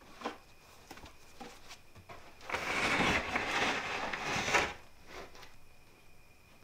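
Wooden OSB booth door being dragged open, a rough scraping rub lasting about two seconds, starting a couple of seconds in.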